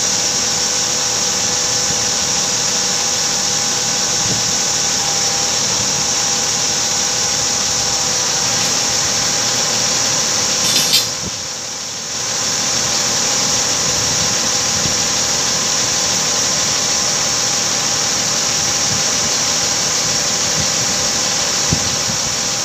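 A 50-tonne truck crane's engine and hydraulics running steadily with a continuous high whine and a lower hum. About eleven seconds in there is a short knock, then the sound drops for about a second before coming back.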